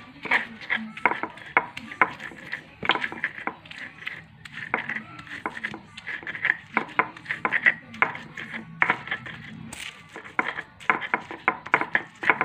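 Stone pestle (ulekan) crushing and grinding fried chilies and shallots on a stone mortar (cobek), with repeated irregular knocks and scrapes of stone on stone, a few a second.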